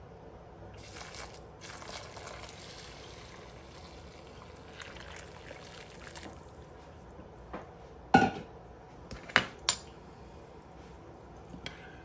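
Hot water pouring from a glass measuring cup into a glass baking dish of dry brown rice, a steady splashing pour lasting about six seconds. It is followed by a few sharp clinks of a metal spoon and glass as the rice is stirred in the glass dish; the loudest come about eight to ten seconds in.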